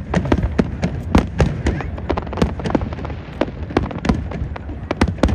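Fireworks display bursting overhead: rapid, irregular cracks and booms, several a second, over a continuous low rumble.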